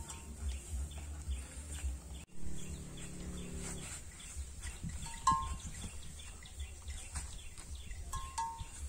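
Quiet farmyard ambience with faint scattered clicks and rustles. A low, steady drone lasts about a second and a half a couple of seconds in, and there are short bird chirps about halfway through and again near the end.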